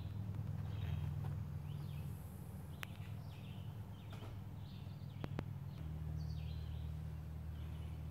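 A bird calling in short chirps, about one a second, over a steady low hum, with a few faint clicks.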